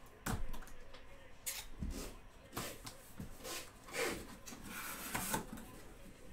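Sealed cardboard box being opened: packing tape slit with a box cutter, the box moved and its lid flap pulled up, giving a run of scrapes, rubs and knocks.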